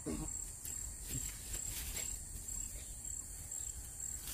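An insect chirring in a high, steady tone that pulses about three times a second.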